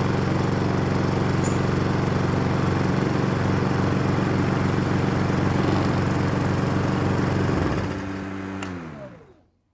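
Briggs & Stratton four-stroke petrol engine of a walk-behind lawn mower running steadily at a constant speed. Near the end it is shut off and winds down to a stop, its pitch falling.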